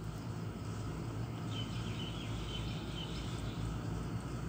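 Steady low machine hum, with a bird chirping a quick run of short high notes in the middle.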